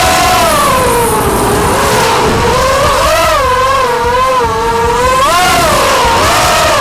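Racing quadcopter's four brushless motors (2206, 1950KV) spinning 6030 propellers, a whine that rises and falls in pitch several times as the throttle changes through turns, heard close up from the onboard camera.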